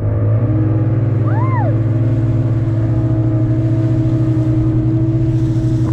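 Outboard motor on an open wooden fishing boat running steadily at cruising speed, a constant low engine hum.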